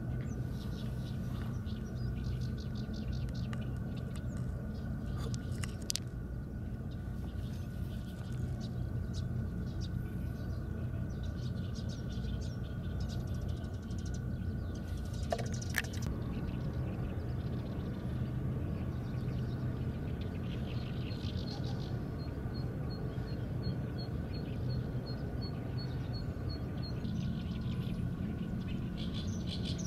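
A steady low hum with faint crunches of gravel shifting underfoot in the first half. Late on, a small bird gives a quick run of short high notes, about three a second, for a few seconds.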